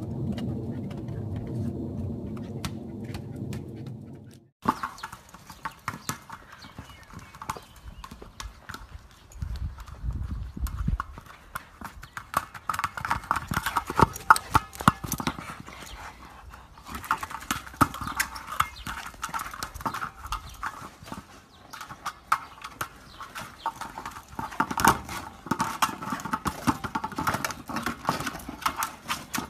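A low pitched drone for the first few seconds, cut off abruptly. Then dense, irregular clicks and knocks from dogs scrambling after balls on paving, typical of claws skittering and a ball being bumped.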